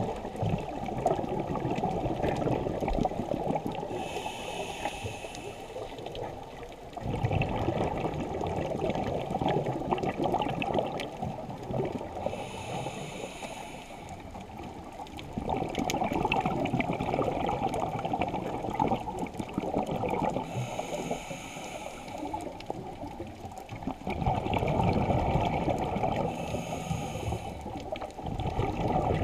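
Scuba diver breathing through a regulator underwater: a short hiss on each inhale, then a long rush of exhaled bubbles. Four breaths come in a steady rhythm, roughly every eight seconds.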